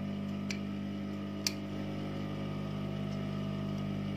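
Industrial sewing machine's motor humming steadily while switched on but not stitching, with two sharp clicks about a second apart.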